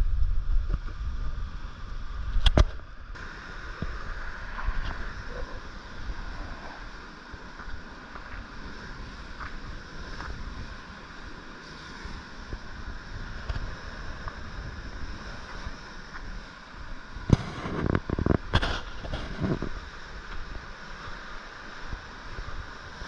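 Outdoor ambience on a rocky coastal track: wind rumbling on the microphone at first, then a steady hiss, broken by a sharp knock about two seconds in and a cluster of knocks and scuffs about three-quarters of the way through.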